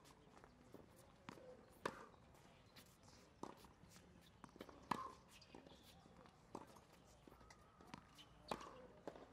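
Tennis ball struck by a racket during a rally on a hard court: three sharp hits about three seconds apart, with fainter ball bounces and footsteps between them.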